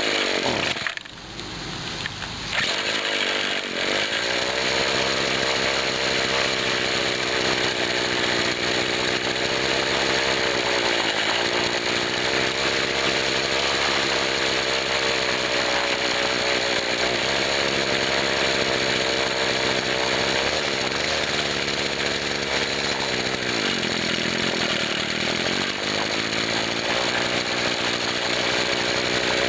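Two-stroke engine of a 1997 Husqvarna 24cc straight-shaft string trimmer running hard. It nearly dies about a second in and picks back up, and its pitch sags again twice: it bogs down under full throttle, the sign of a bad carburettor diaphragm.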